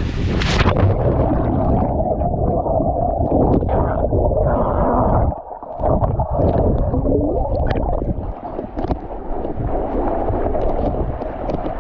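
A splash about half a second in as someone jumps into the waterfall pool, then muffled churning and gurgling of water heard from underwater.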